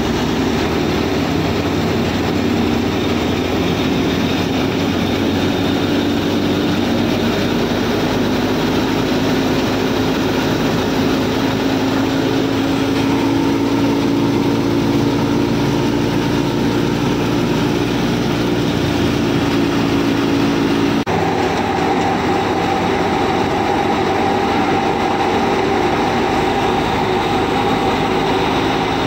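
Miniature belt-driven wheat thresher machine running, with a steady whirring drive hum and rattle. The hum drifts slightly up in pitch, then its tone changes abruptly about three-quarters of the way through.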